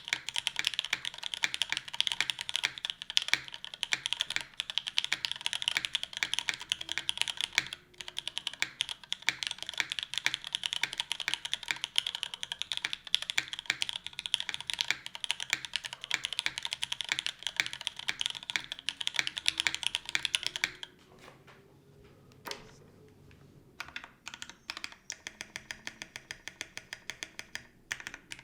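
Fast typing on a Hiney Ladybird keyboard with a top-mounted aluminium plate, lubed and filmed Cherry MX Black linear switches and CRP keycaps. The typing stops about 21 s in, with a single click in the pause. From about 24 s, single keys are pressed one at a time at a steady, slower pace: the modifier keys.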